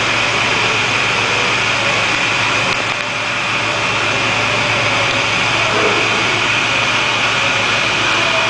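A 4-axis CNC milling machine running steadily, a constant high whine over an even mechanical noise.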